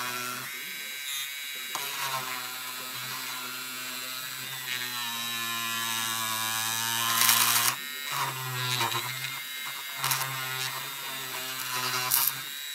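Handheld pen-style rotary tool with a fine bit buzzing as it grinds a hole into a plastic model part, its hum wavering and breaking off briefly as the bit bites. A louder, harsher grinding rasp comes about seven seconds in and again near the end.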